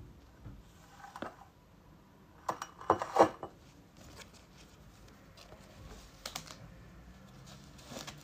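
Close handling noises: a disposable paper face mask rustling and crinkling as it is unhooked and unfolded, with scattered small clicks. A few louder knocks come about three seconds in, as the ceramic mug is moved on the glass tabletop.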